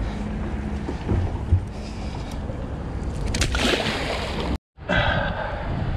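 Boat on open water: a steady wash of wind and water against the hull, with two soft knocks a little over a second in and a short hissing rush a bit past the middle. The sound drops out for an instant near the end.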